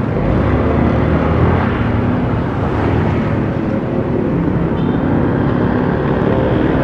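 Honda Click scooter's engine running steadily while riding, with road and wind noise on the microphone.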